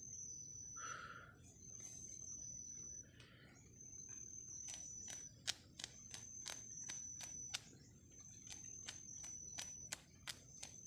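An insect calling in the forest: a steady high-pitched trill in repeated phrases of about a second and a half, with short breaks between them. From about four seconds in it is joined by a run of sharp clicks, several a second.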